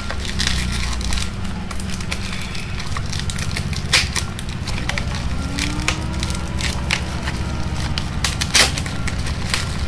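Bubble wrap being pulled and crumpled off a small boxed toy by hand, with many irregular sharp crackles.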